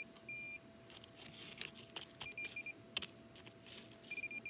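Handheld metal-detecting pinpointer giving short high beeps as it is probed through dry soil and leaf litter, with scraping and crackling of the probe in the dirt. One beep comes about a third of a second in, a quick run of beeps follows around two and a half seconds, and another comes near the end.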